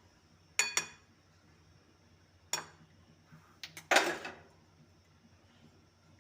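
Kitchen utensils and dishes clinking with a brief metallic ring: a quick double clink, a single clink a couple of seconds later, then two light taps and a short clatter a little past the middle.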